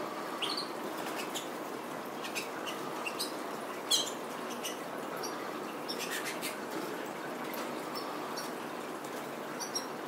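Caged canaries fluttering between perches, their wings flapping, with scattered short chirps and call notes and a few sharp clicks.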